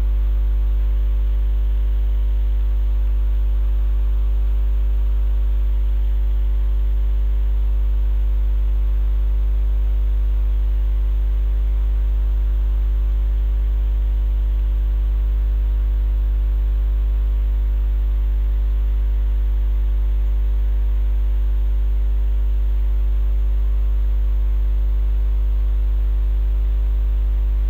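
Loud, steady electrical mains hum: a low buzz with a row of higher overtones, unchanging in pitch and level.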